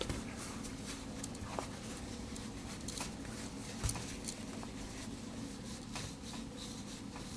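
Quiet handling sounds of a Swiss Army knife being wiped clean of fingerprints: soft rubbing with scattered light clicks and a small knock about four seconds in, over a steady low hum.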